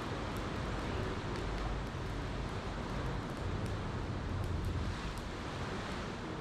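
Campfire crackling with scattered small pops over a steady rush of ocean waves.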